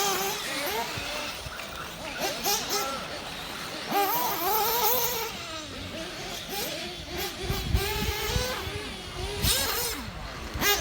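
Small nitro engine of a 1/8-scale RC monster truck revving up and down over and over as the throttle is worked, with a low rumble joining in past halfway.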